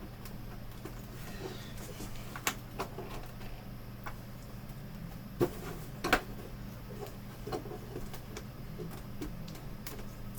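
Plastic prying tools working at a monitor's plastic frame and clips: scattered sharp clicks and light scrapes, the loudest pair about six seconds in, over a steady low hum.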